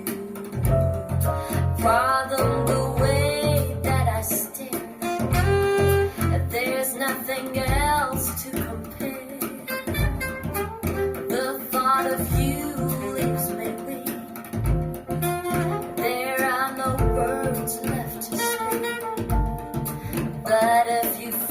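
A pop song played back through Polk Audio Legend L200 bookshelf speakers: guitar, double bass and a bending melody line over strong, regularly recurring low bass notes.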